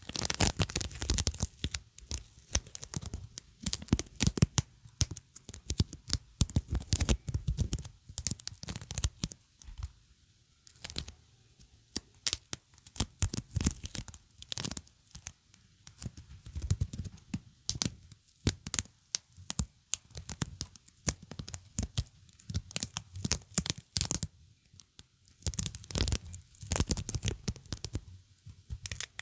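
Sticky surfaces being pressed together and peeled apart, crackling and tearing in quick bursts with short pauses between them.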